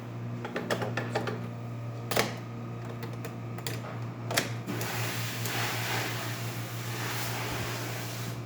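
Breville Oracle Touch espresso machine at work at the start of a test shot: a steady low hum with several sharp clicks and knocks, the strongest about two seconds and four and a half seconds in. A steady hiss takes over for the last few seconds.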